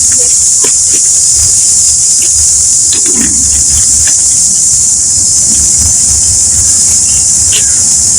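Loud chorus of insects, a steady high-pitched hiss that does not break or change.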